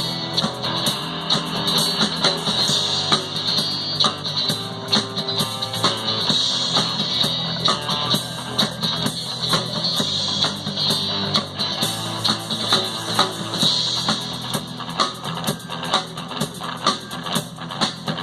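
Instrumental ending of a rock song: guitar playing over a steady drum beat, with no singing.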